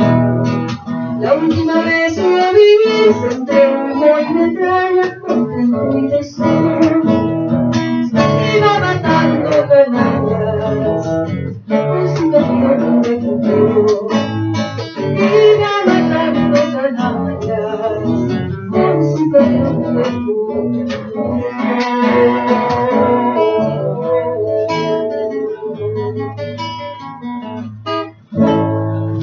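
Acoustic guitar strummed live, with voices singing along.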